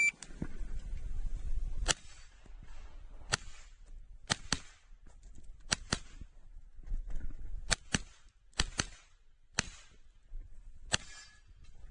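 Grand Power Stribog 9 mm pistol-caliber carbine firing about eleven shots through an IPSC stage, irregularly spaced with several quick pairs.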